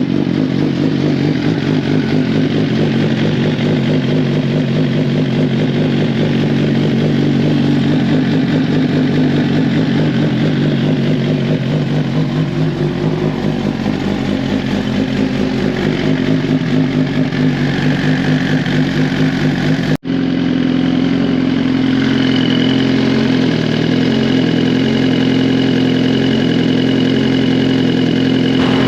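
2023 Suzuki GSX-R1000's inline-four engine running at a steady idle, with a brief cut about 20 seconds in before it idles on.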